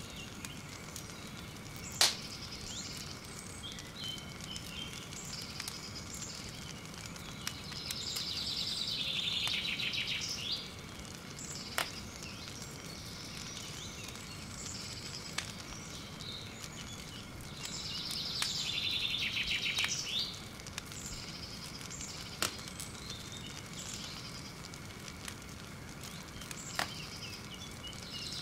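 Woodland ambience with birds singing: two longer bouts of rapid, high trilling song, about a third and two-thirds of the way through, and a few sharp single cracks from a wood campfire, the loudest about two seconds in.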